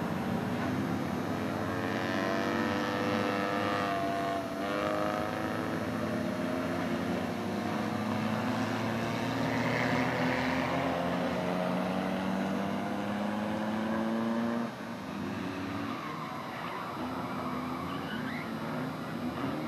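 Race car engines running hard on the track, their pitch climbing steadily for about fifteen seconds and then dropping off suddenly. Under the engines is a rough scraping of steel skid plates dragged along the asphalt.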